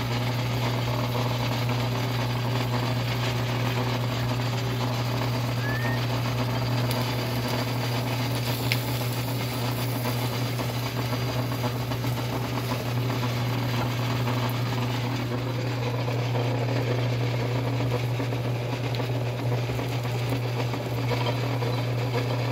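Cast-iron sugarcane mill, a hand-cranked one converted to electric drive, running steadily with a low hum and the rattle of its gears as cane stalks are fed through its rollers and crushed.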